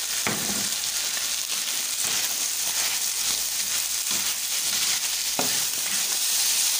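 Meat browning in hot oil in a cooking pot: a steady sizzle, with a few light knocks.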